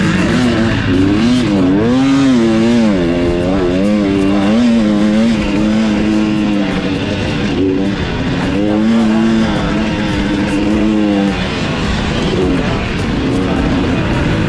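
Dirt bike engine on a motocross track, its pitch rising and falling as the rider revs, shifts and rolls off over the bumps during the first few seconds. It then pulls at a steadier pitch with a brief drop near the middle, and eases off lower near the end.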